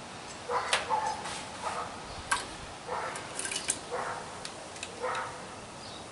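A dog barking, about five short barks roughly a second apart, with a few sharp clicks in between.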